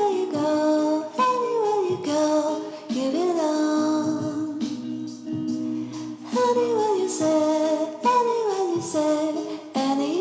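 Background music: a song with a sung melody over sustained chords.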